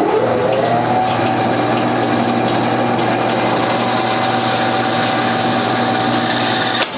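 Harbor Freight Central Machinery bandsaw coming up to speed with a rising whine during the first second, then running steadily as the blade cuts a thick block of wood. Near the end there is a sharp crack with a brief dip in the motor sound: the cut goes wrong and the workpiece catches in the blade, which the owner thinks came from the plastic table insert breaking away.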